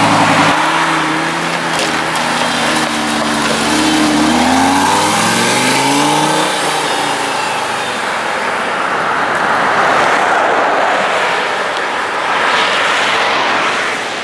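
Lamborghini Gallardo Spyder's V10 engine being revved, its pitch climbing and falling over a few long revs in the first half, then rougher, louder surges of throttle near the end.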